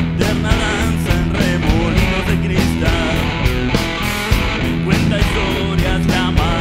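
Rock music: drums keep a steady beat under bass and electric guitar.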